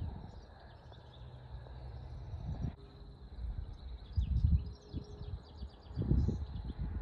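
Outdoor ambience: wind rumbling on the microphone in gusts, loudest about four and six seconds in. Small birds chirp high throughout, over a faint steady insect trill.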